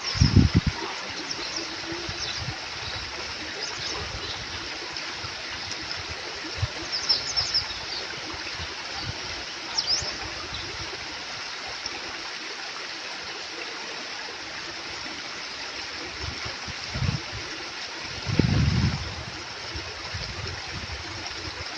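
Small stream flowing and trickling steadily. A few low thumps stand out, just after the start and twice near the end.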